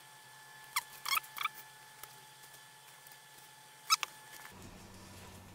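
A few short squeaks and clicks from handling the brush-cap jar of liquid insulating coating: a cluster of three about a second in, and two more near four seconds.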